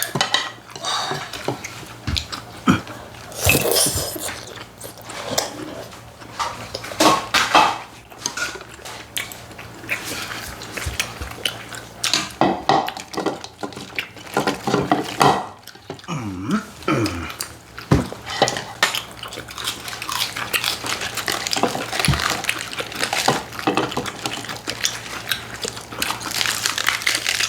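Cutlery clicking and clinking against plates and bowls again and again, with chewing, as people eat at a table.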